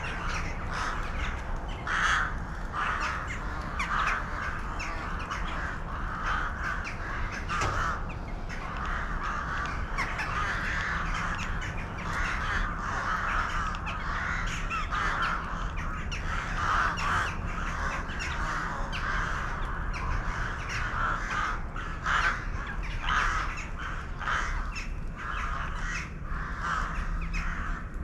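A flock of birds calling all at once: a dense, overlapping chorus of short calls that runs on without a break.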